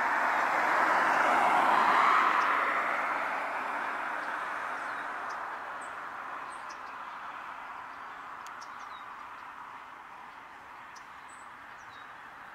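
A vehicle passing on a nearby road: a rush of tyre and engine noise that peaks about two seconds in and then slowly fades. Small birds chirp sparsely over it.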